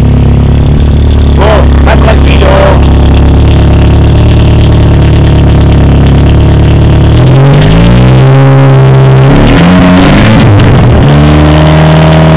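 Fiat 128's four-cylinder engine, freshly tuned, idling steadily, then revved about seven seconds in, its pitch climbing and dropping back through several blips of the throttle. Loud enough to push the recording near full scale.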